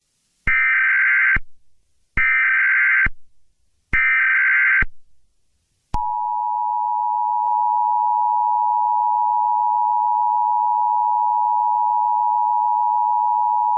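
Emergency Alert System alert opening: three short bursts of SAME header data tones about a second apart, then the steady two-tone attention signal for about eight seconds.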